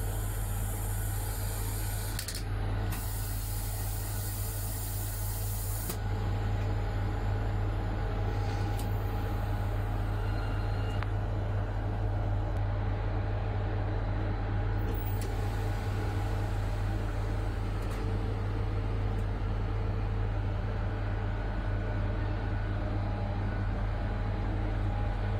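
Steady deep hum and running noise of a MÁV V63 'Gigant' six-axle electric locomotive under way, with several steady tones held above the hum. A high hiss comes twice in the first six seconds.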